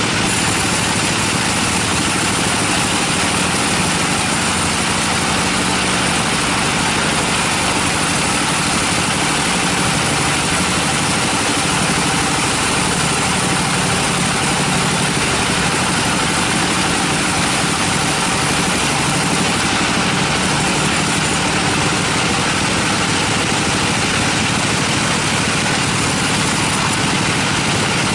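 Band sawmill running steadily, its blade cutting lengthwise through a teak log with a continuous, even machine noise.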